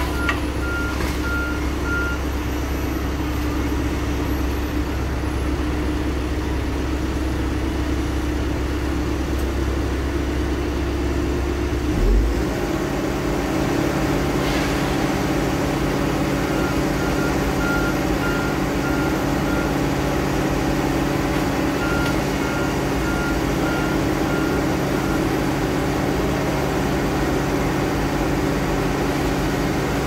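Diesel engine of heavy logging equipment running steadily; about midway its note shifts. A backup alarm beeps in three short runs of several beeps, once near the start and twice in the second half.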